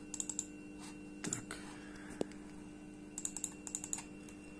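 Laptop keys tapped in a few short, quick bursts of clicks, over a faint steady hum.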